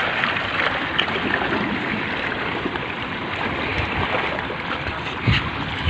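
Steady wash of sea water against the rocks of a breakwater, heard as an even rushing noise, with a couple of short low thumps near the end.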